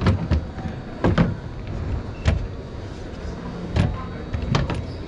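Plastic deck hatch lids on a skiff being handled, opened and shut, giving about five sharp knocks and clunks over a steady background din.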